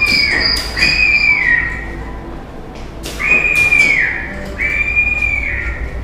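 Haunted-house sound effects: a high whistling tone, each lasting under a second and sliding down at its end, sounds four times in uneven pairs, with scattered clicks and knocks. A steady high chirring tone stops about one and a half seconds in.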